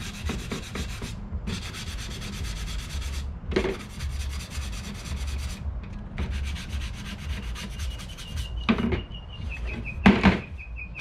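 Hand sanding a 1x6 wooden board with a sanding block, smoothing the wood: four runs of quick back-and-forth scratchy strokes with short pauses between, then a couple of knocks near the end.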